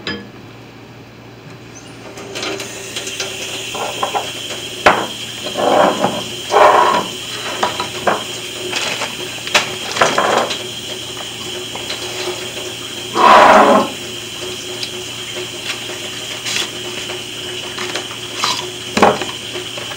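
Kitchen sink faucet turned on about two seconds in and left running with a steady hiss of water. A few short, louder noises come over it.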